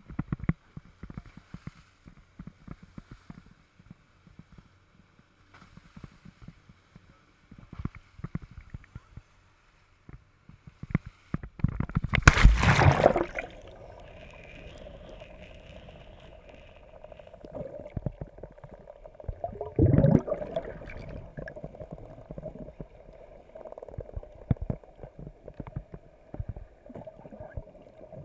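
Water gurgling and popping close to the microphone, with a loud rush of water about halfway through and a smaller one later. A steady hum runs through the second half.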